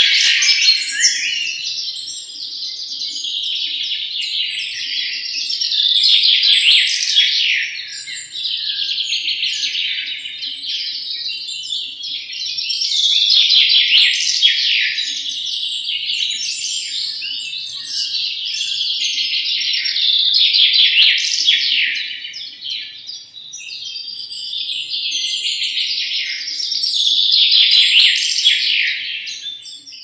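European goldfinches singing: a continuous, rapid twittering that swells louder about every seven seconds.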